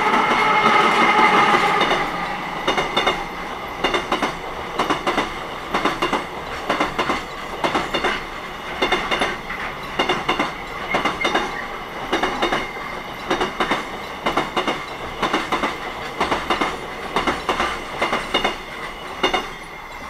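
A container freight train hauled by a Korail 8000-series electric locomotive passes close by. It is loudest in the first two seconds, with a slightly falling whine, then settles into a steady clickety-clack of paired clacks as the wagons' wheels cross the rail joints. The clacking stops about a second before the end as the last wagon clears.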